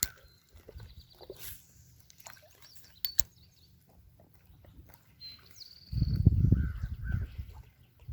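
A few faint bird chirps and a short falling whistle, with two sharp clicks. Low rumbling noise on the microphone in the last two seconds.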